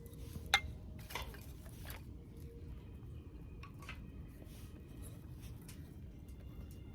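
A few short, sharp clicks and knocks of things being handled, the first about half a second in and a second just after one second, with fainter ticks later, over a low, steady background noise.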